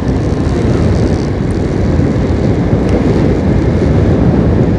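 Motorcycle riding along a road: a steady rush of wind buffeting the microphone over the running engine.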